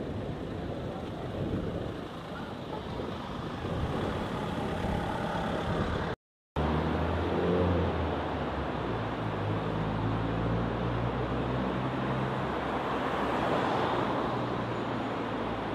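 Town road traffic: cars driving by, broken by a brief total dropout about six seconds in. After it, a car engine's low hum stands out for several seconds, and another car passes near the end.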